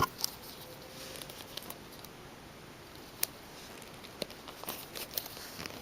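Toy packaging being handled and opened by hand: scattered light clicks and ticks of plastic and cardboard, with a sharper click about three seconds in and another a second later, and light rustling near the end.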